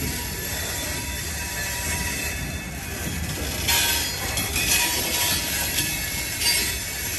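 Covered hopper cars of a long freight train rolling past at a grade crossing: a steady rumble of wheels on rail, with short bursts of high-pitched wheel squeal about four and five seconds in and again near the end.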